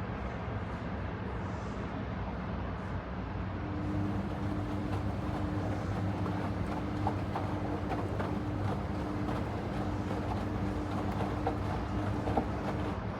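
Panasonic XQG32-A312D compact washing machine running: a steady motor hum that gains a higher tone about four seconds in, with scattered light clicks and knocks in the second half.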